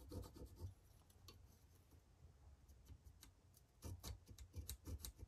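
Near silence with faint ticks and scratches from a dial caliper's jaw scribing a centre mark on a small steel plate, in the first second and again in a short run of clicks about four seconds in.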